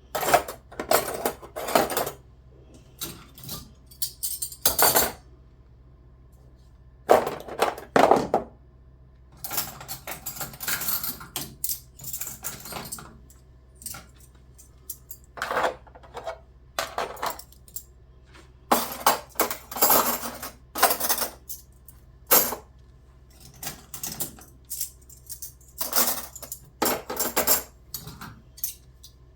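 Kitchenware being handled and sorted: irregular clinking and clattering of dishes and cutlery, in short bursts with pauses between.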